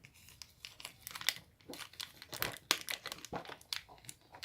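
Plastic packaging crinkling and rustling in irregular bursts, with small clicks and taps, as toy food is handled and fitted into a toy refrigerator.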